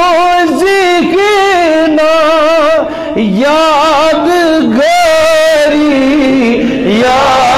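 A man singing a Kashmiri naat, an Islamic devotional praise song, solo into a microphone: long held notes with quivering melismatic ornaments and sliding pitch, with a brief pause for breath about three seconds in.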